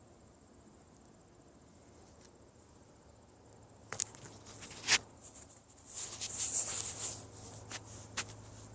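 A steady high-pitched cricket trill throughout. About four seconds in come two sharp clicks a second apart, then a louder rustling burst and two more clicks near the end.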